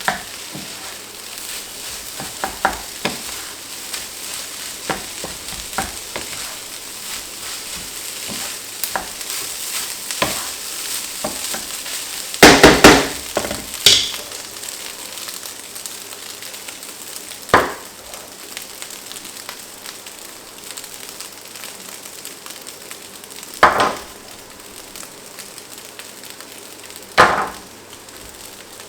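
Fried rice sizzling in a hot pan while being stirred, the utensil scraping and knocking against the pan now and then. The loudest scrapes come in a cluster about halfway through, followed by three more single knocks.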